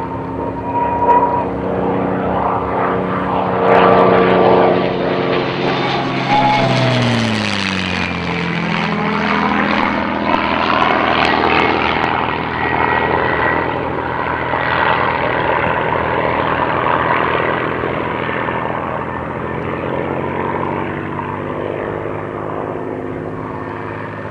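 A P-51D Mustang's Packard Merlin V-12 engine at display power in a low fly-past, its note dropping sharply in pitch as it passes about seven seconds in, then running on as it turns and comes round again, with the type's thin whistle above the engine.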